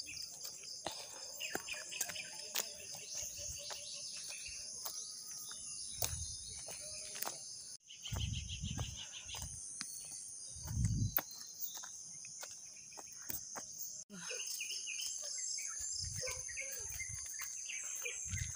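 Steady high-pitched drone of forest insects with scattered bird chirps over it, and a few low thuds around the middle.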